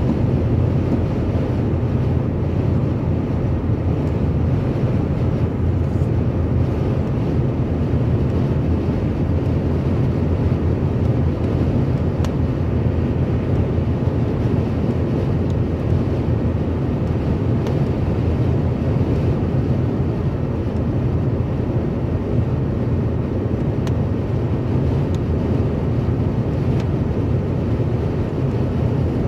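Steady low rumble of a car cruising at motorway speed: tyre and road noise with engine drone, even and unchanging throughout.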